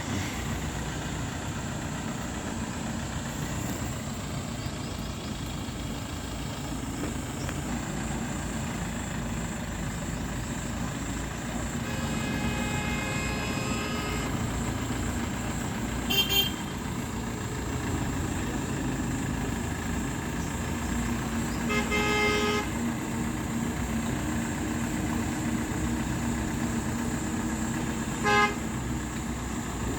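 Road traffic running steadily, with vehicle horns honking four times: one long honk about twelve seconds in, and shorter, louder toots later on.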